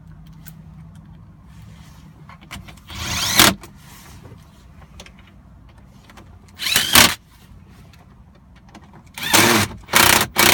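Cordless drill-driver driving in the screws that hold a new gear shifter assembly. Its motor whines up and drops back in short bursts of about half a second, once about three seconds in, again about seven seconds in, and two or three times near the end.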